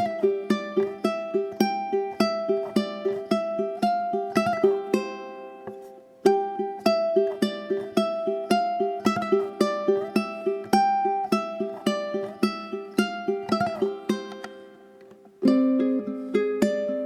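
Background music: a plucked-string melody over a steady, even pulse of picked notes, fading out twice and starting again.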